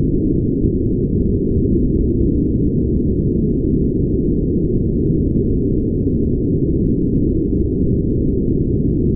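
Brown noise: a steady, deep, even hiss with no high end and no changes.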